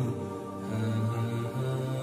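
Background nasheed sung by voices alone, with no instruments: layered vocal tones held as long, steady notes, shifting pitch a couple of times.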